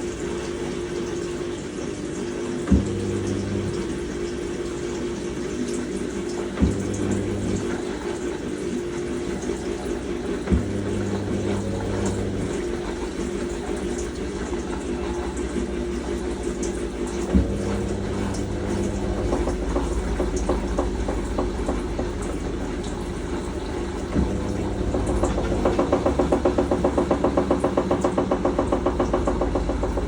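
Teco top-load agitator washing machine draining: the drain pump runs steadily with water rushing out, and a sharp clunk comes about every four seconds. About twenty-four seconds in, a rapid rhythmic pulsing starts and grows louder.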